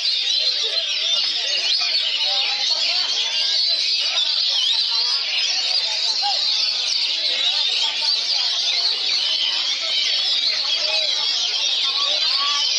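Many caged oriental magpie-robins (kacer) singing at once in a dense, unbroken tangle of overlapping whistles, chirps and warbles.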